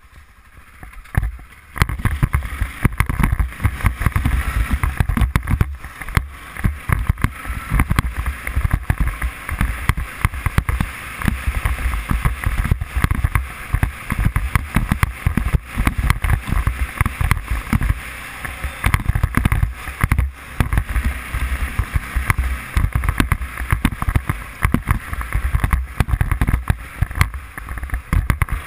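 Arctic Cat 500 quad's engine running as it is ridden down a gravel track, heard through heavy wind buffeting on the camera microphone. The sound is quieter for the first second or so, then rises and stays loud and rough.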